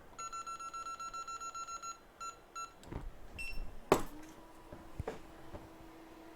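An electronic device beeping: one long beep of about two seconds, then two short beeps and a brief higher-pitched one. Two sharp clicks follow, and a steady low hum starts about four seconds in.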